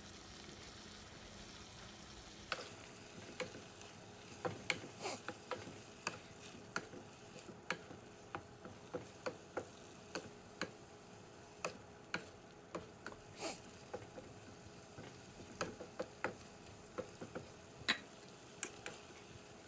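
Pork and long beans frying in a pan with a low, steady sizzle, stirred with a spatula that knocks and scrapes against the pan at irregular intervals from a couple of seconds in.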